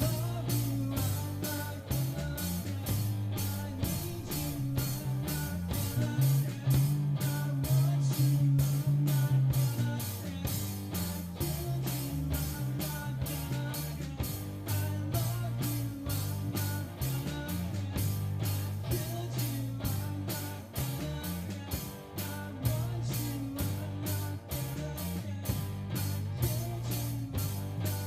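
A live rock band playing an instrumental passage: electric guitar over bass and a drum kit keeping a steady beat.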